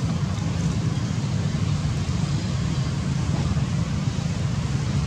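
Steady low rumble with a fainter hiss above it, outdoor background noise.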